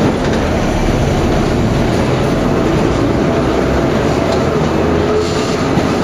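Vintage Lo-V subway cars running through a tunnel: a steady loud rumble of wheels on rail.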